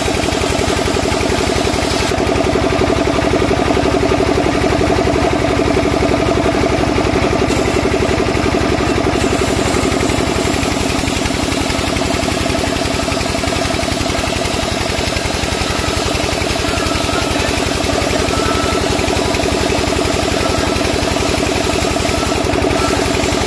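Sawmill band saw running steadily while a timber beam is fed through the blade and sawn lengthwise, a continuous machine drone with a fast, even pulse.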